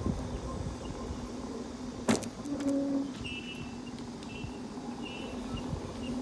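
Electric bike riding: a steady motor hum with road and wind rumble, and a single sharp click about two seconds in.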